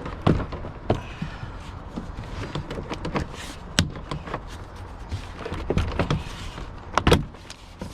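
Plastic pop clips of a 2012 Hyundai Sonata's interior door panel snapping loose as the panel is pried off, with scattered knocks and rattles of the panel. The loudest pops come about a third of a second in, near four seconds and about seven seconds in.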